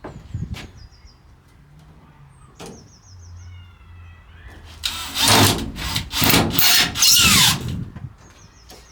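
Plywood van lining being fitted: a few light knocks, then about two and a half seconds of loud scraping and rubbing of wood, in three strokes near the end.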